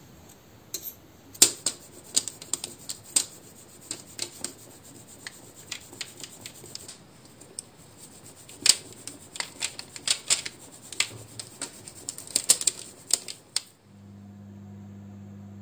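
Dough being grated over a jam-topped tart base: irregular crisp ticks and scratches of the grater and the falling crumbs. They stop about 14 seconds in, where a steady oven hum takes over.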